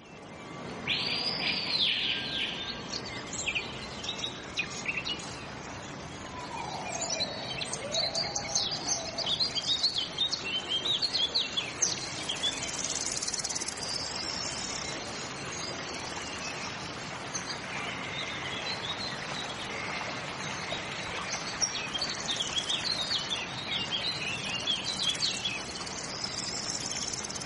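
Several birds chirping and singing over a steady background hiss, with many short, high calls throughout and a lower sliding whistle about seven seconds in.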